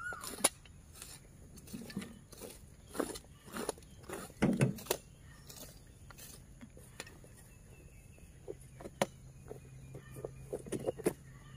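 Scattered, irregular knocks and rustles, heavier in the first few seconds, with a faint steady low hum from about halfway through and a few faint high chirps near the end.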